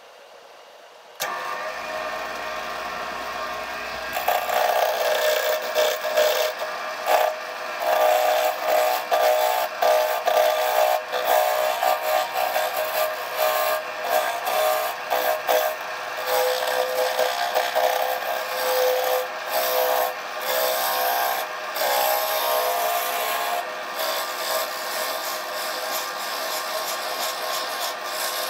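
Wood lathe motor starting about a second in and spinning a square spalted cherry blank. From about four seconds, a turning tool cuts into the wood with an uneven, scraping cutting noise over the steady motor hum as the blank is roughed round.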